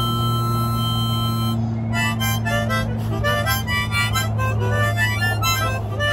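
Harmonica music: a held chord, then from about two seconds in a run of quick notes, over a steady low drone.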